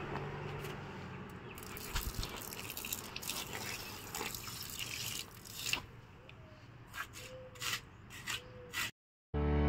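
Water being poured onto garden plants and soil, splashing and dripping in faint irregular spatters. It cuts off suddenly near the end.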